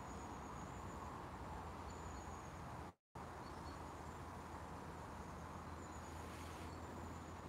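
Quiet lakeside outdoor ambience: a faint steady background hiss with a thin, high-pitched tone that comes and goes. The sound cuts out completely for a moment about three seconds in.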